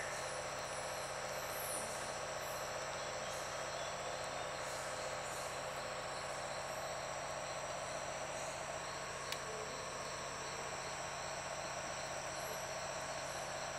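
Steady chorus of Amazon rainforest insects: several unbroken high-pitched tones over a constant hiss, with a faint click about nine seconds in.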